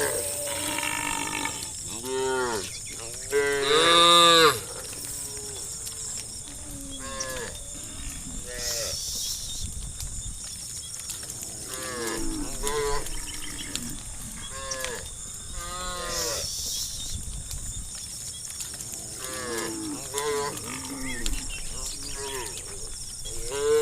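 Cows mooing again and again, a dozen or so calls that each rise and fall in pitch, with a loud, longer moo about four seconds in.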